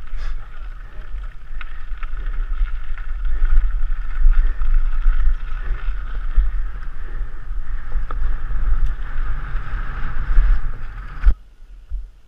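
Mountain bike ridden fast down a gravel trail, heard through a helmet-mounted camera: wind buffeting the microphone over the crunch and rattle of the tyres and bike on gravel, with scattered knocks. It cuts off abruptly near the end.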